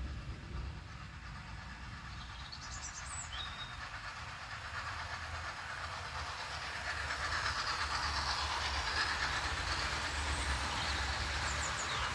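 00 scale model steam locomotive and coaches running along the rails, the rumble of wheels on track growing louder from about halfway through as the train approaches and passes close by.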